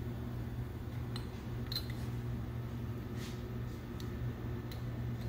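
A few faint, scattered metallic clicks and clinks as the brass fittings and valve of a nitrogen charging kit on a hydraulic accumulator are handled, over a steady low hum.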